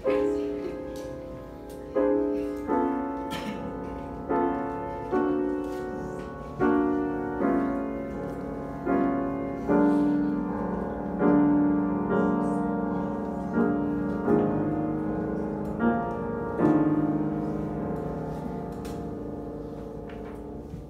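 Grand piano playing a slow series of struck chords, roughly one a second, each ringing and dying away. The last chord is held and fades out over the final few seconds.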